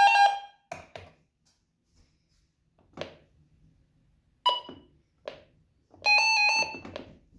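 Electronic tones from a radio being tested. A buzzy tone cuts off just after the start, a few clicks and short blips follow, and about six seconds in a second tone warbles quickly between two pitches for about a second.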